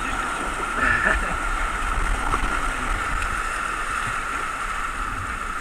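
Rushing whitewater of a mountain river rapid, heard from a kayak in the current: a steady loud hiss of churning water with a low rumble beneath. A brief high-pitched sound stands out about a second in.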